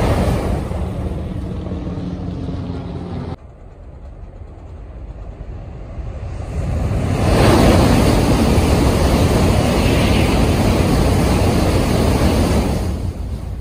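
Tokaido Shinkansen trains passing at high speed on the viaduct overhead. The rushing noise of the first train's tail cuts off abruptly about three seconds in. A second train rushes up from about six seconds in and goes past loudly and steadily, then fades away near the end.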